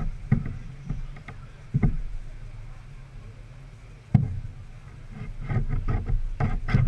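Handling knocks on a canoe hull: a few sharp knocks in the first two seconds and a louder one about four seconds in, then a quick run of scraping strokes as a metal blade is worked on the wooden gunwale, over a steady low rumble.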